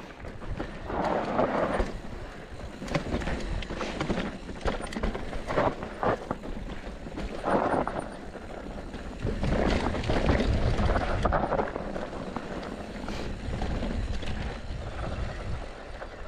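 Mountain bike descending a rough trail: tyres rolling and crunching over dirt and stones, with the bike knocking and rattling over bumps.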